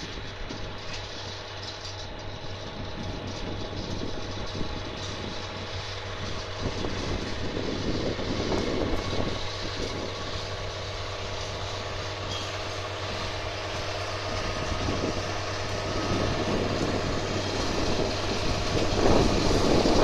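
John Deere 7720's six-cylinder diesel engine working under load while it pulls a seed drill and cultivator across a field, a steady hum that grows louder as the tractor comes closer.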